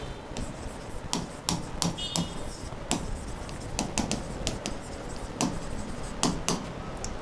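A pen tapping and scraping on a writing board while words are handwritten: a string of sharp, irregular taps and clicks, a few each second.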